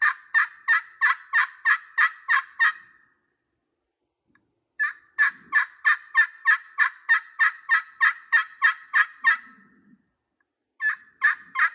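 3 1/2-inch titanium friction pot turkey call played with a striker, a size built for volume: loud runs of turkey yelps, about three ringing notes a second. One run stops about three seconds in, a longer run follows after a two-second pause, and another begins near the end.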